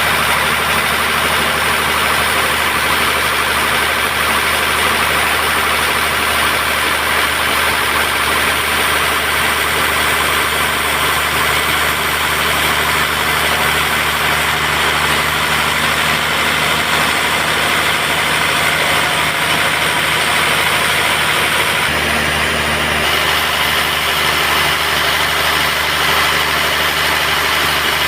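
Band sawmill running steadily, a constant machine drone with a hiss of the blade, which changes character once about three-quarters of the way through.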